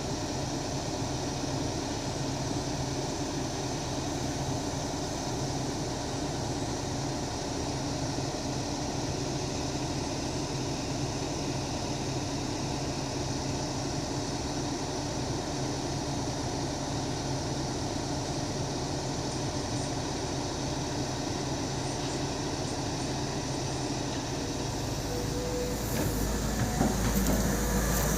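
Volvo EC200D excavator's diesel engine running steadily. Near the end it grows louder and deeper, and a thin whine comes in.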